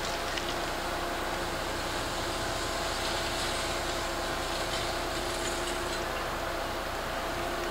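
Heavy diesel machinery running steadily: a constant engine hum with a steady whine held on two pitches, and a few faint ticks near the start.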